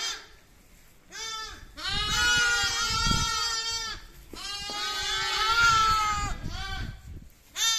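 Young lambs bleating: a string of wavering, high-pitched calls, several overlapping, starting about a second in after a brief quiet spell.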